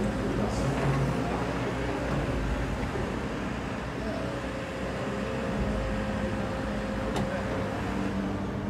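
Diesel engines of a JCB backhoe loader and a JCB wheeled excavator running steadily, a low rumble over general crowd noise. A single sharp click comes about seven seconds in.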